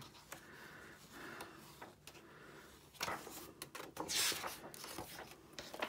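Paper pages of a large illustrated book being turned by hand, with swishes of paper about three and four seconds in.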